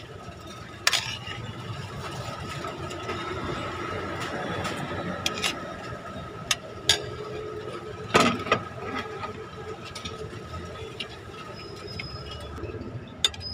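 A metal spoon clinking and scraping against a plate a few times as a man eats, over a steady hum of engines and traffic.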